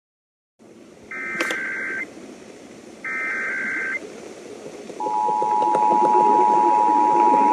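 Emergency Alert System transmission received with background hiss: two one-second bursts of the buzzy SAME header data tones, then from about five seconds in the loud, steady two-tone EAS attention signal.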